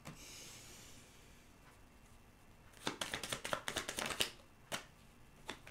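Tarot cards being shuffled by hand: a quick run of card flicks about three seconds in, lasting about a second and a half, then two single card clicks near the end.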